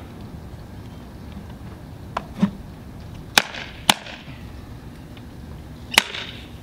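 Sharp metal clicks from the clips on a wooden printing frame as they are fastened, with a light knock of wood about two and a half seconds in. There are two lighter clicks, then two loud ones about half a second apart, and one more loud click near the end.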